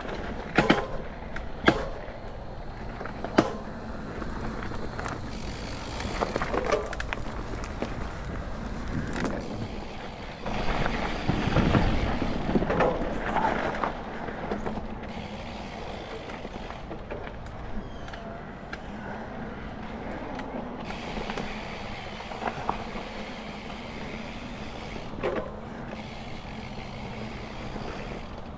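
Mountain bike rolling along a dirt trail strewn with dry leaves: steady tyre noise on the dirt, with a few sharp clicks and rattles from the bike in the first few seconds and a louder, rougher stretch about halfway through.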